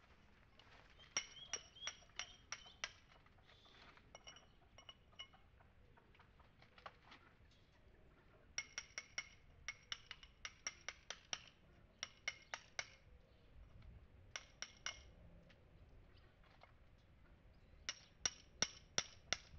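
Hammer striking a steel chisel to knock old mortar out of the joints of a stone wall: sharp ringing clinks in runs of about three to four blows a second, with pauses between the runs.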